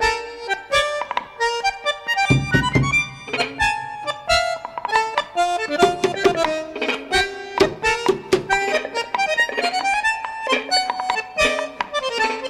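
Instrumental background music: a quick, busy melody of many short pitched notes with sharp attacks, from a reed instrument such as an accordion.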